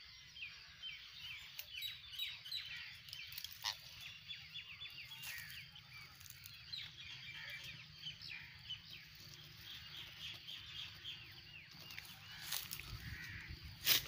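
Young green parakeets chirping: a fast, continuous run of short high calls, with a few rustling knocks from the birds being handled near the end.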